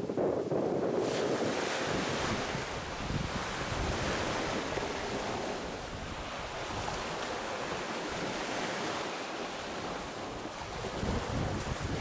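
Small waves washing onto a shingle beach, a steady rush of surf, with wind buffeting the microphone.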